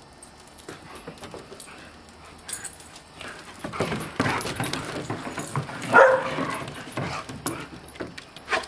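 Dogs play-wrestling on deck boards: scuffling bodies, paws and claws knocking on the boards. One dog gives a short, loud call about six seconds in.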